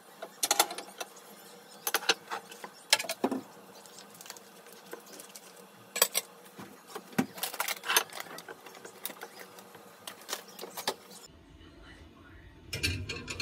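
Crockery and plastic packaging handled: sharp clinks of ceramic plates and rattles of a plastic pastry tray as croissants are moved onto a plate, then near the end a duller knock as the plate is set on a microwave oven's wire rack.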